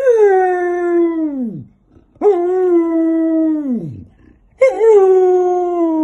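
Samoyed howling: three long howls in a row, each opening with a quick upward swoop, held at a steady pitch, then sliding down as it fades out.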